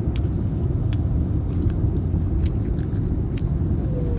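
Chewing a soft chicken nugget that is no longer crunchy, with scattered small mouth clicks, over the steady low rumble of a car driving.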